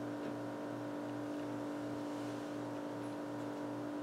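A steady mechanical hum holding one pitch, with a faint low throb a little over twice a second.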